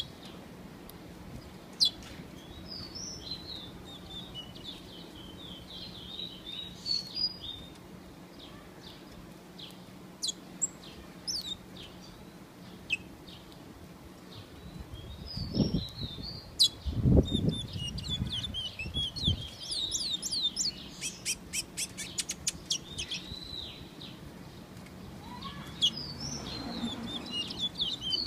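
Small songbirds singing in short chirping and whistled phrases, breaking into fast trills about two-thirds of the way through and again near the end. There are a few low thumps about halfway.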